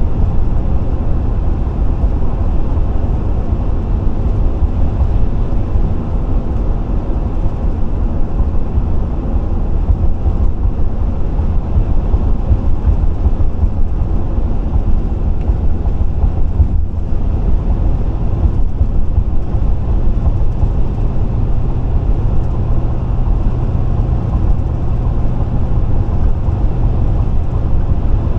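Steady road and engine rumble heard inside a vehicle cruising at highway speed.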